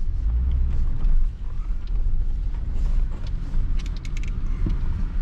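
Steady low rumble of a 4x4 vehicle's engine and tyres heard from inside the cabin while driving, with a few light clicks and rattles about three to four seconds in.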